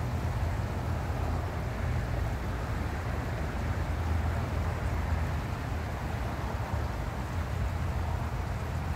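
Steady low rumble with an even hiss over it, unchanging throughout: outdoor background noise with no distinct events.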